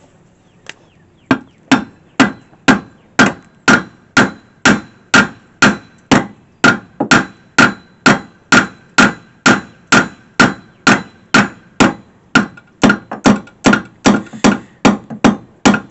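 A hammer striking metal at a steady pace of about two blows a second, starting about a second in, each blow ringing briefly.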